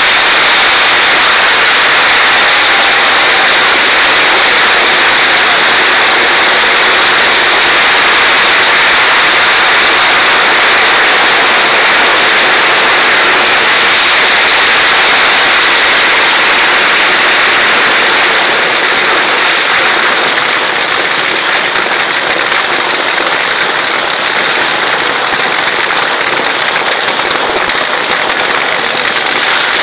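Dense mass of firecrackers going off together, the crackles merging into a loud, continuous din that eases a little about two-thirds of the way through.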